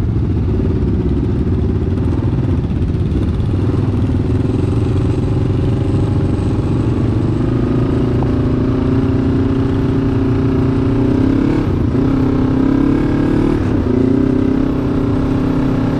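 Adventure motorcycle engine running under way on a trail, its note climbing gradually in the middle and changing pitch briefly twice near the end as the throttle changes.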